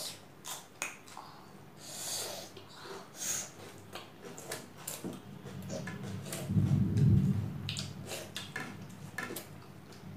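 Close-up eating sounds: chewing, lip smacks and fingers working rice on plates, heard as many short clicks and brief crackles. A louder, low, muffled rumble lasts about a second around seven seconds in.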